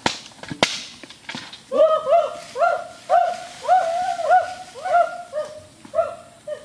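Sharp cracks from a campfire as it throws out sparks, then a run of about ten short calls, each rising and falling in pitch, roughly two a second.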